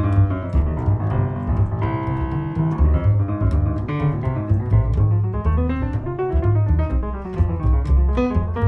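Acoustic jazz from a grand piano and a plucked double bass playing together, the piano carrying a run of notes over the bass line.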